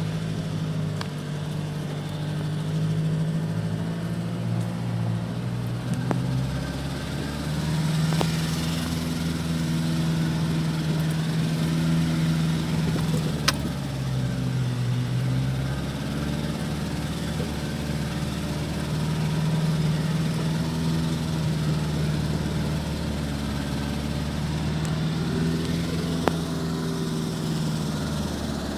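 Nissan Navara D40's 2.5 dCi four-cylinder turbodiesel pulling in low-range four-wheel drive over rough ground, its revs dipping and rising several times. A few sharp knocks come through over the engine.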